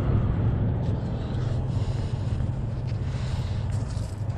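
Steady low rumble of wind on the microphone and road noise from a fat-tire e-bike while riding.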